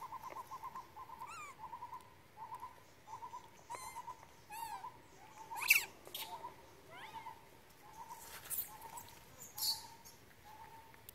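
Animal calls: a run of short repeated notes at one steady pitch, fast at first and then spaced out, with a few higher chirps over them and one sharper, louder call about halfway.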